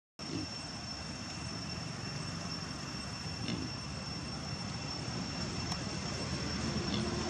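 Steady outdoor background noise: a low rushing rumble that grows slightly louder toward the end, with a thin, steady high-pitched whine over it. It cuts out for an instant at the very start.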